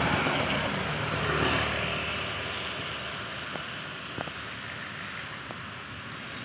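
Motorcycle passing close by on a wet road, its engine and the hiss of its tyres on the wet asphalt loudest over the first two seconds, then fading. A quieter, steady hiss of traffic on the wet road follows.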